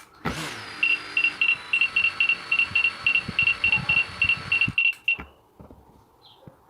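Autel Evo Nano Plus drone motors spinning up suddenly and running with a steady whine for about four and a half seconds, then cutting off. A rapid series of high beeps, about four a second, sounds over it and stops just after the motors.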